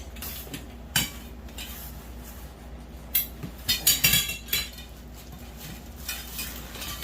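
Metal grow-tent frame poles clinking and knocking against each other and their connectors as they are handled, in scattered sharp taps with a busier cluster midway.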